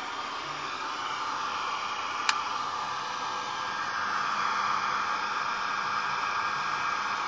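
Vintage 1960s German hairdryer running, a steady blowing rush, with a single sharp click about two seconds in.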